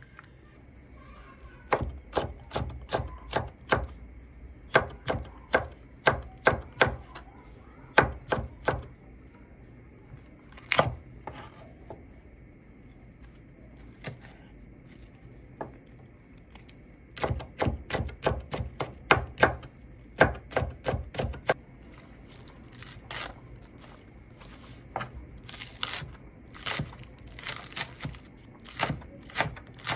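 Knife chopping vegetables on a cutting board: runs of quick sharp strikes, about three a second, broken by pauses, with lighter scattered knocks near the end.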